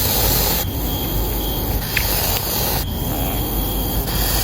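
A hedgehog hissing and huffing in a few long noisy puffs, the defensive, agitated sound it makes when disturbed, likened to a pufferfish puffing itself up.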